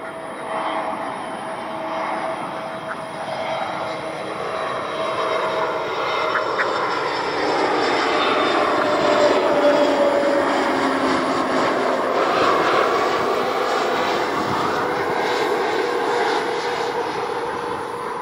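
Citilink Airbus A320 jet airliner on landing approach passing overhead. The engine noise and whine build to a peak about halfway through, then drop in pitch as the plane goes by and moves away.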